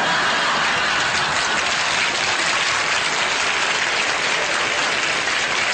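Sitcom studio audience applauding, a steady, even clatter of many hands.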